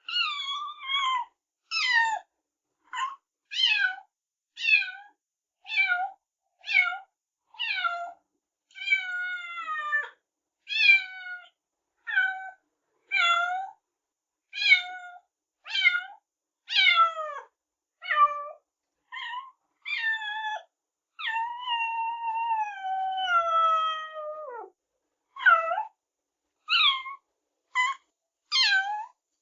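A kitten meowing over and over, high-pitched calls about one a second, most falling in pitch. Two calls are longer and drawn out, one lasting about three seconds past the middle.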